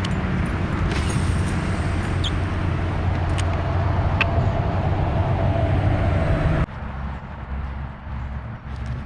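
A steady engine drone mixed with wind rumble, cut off abruptly about seven seconds in; a quieter, gusty wind noise follows.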